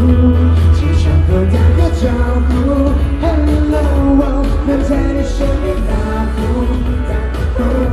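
Mandarin pop song with a male lead vocal over a heavy bass beat, played loud through a sound system. The bass drops back for a few seconds in the middle and returns near the end.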